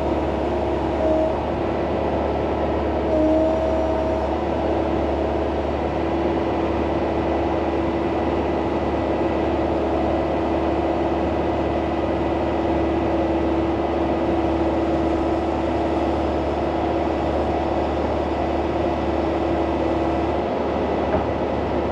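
Hitachi excavator's diesel engine running steadily, heard from inside the cab, with a steady whine over the engine hum. The whine shifts briefly twice in the first few seconds as the machine is worked.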